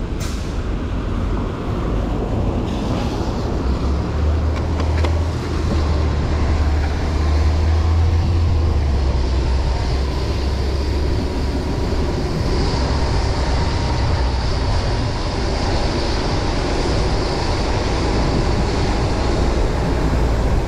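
Wind and road noise from a bicycle ridden in the rain: a steady low rumble of wind on the microphone, swelling for a few seconds early on, under a hiss of wet road and passing traffic.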